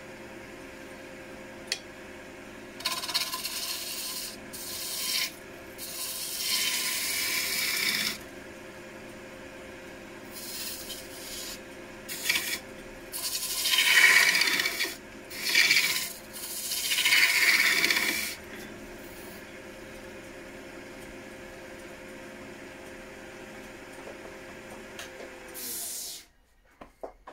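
Wood lathe running with a steady hum while a turning tool cuts the spinning wooden Indian club blank, throwing long shavings in several loud bursts of scraping cutting noise. The lathe cuts off abruptly near the end.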